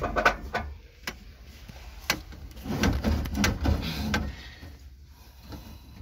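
Clicks, knocks and rattles of hands working on a gas water heater's fittings while the gas hose is connected to its inlet. There are several sharp clicks in the first two seconds, then a stretch of handling noise.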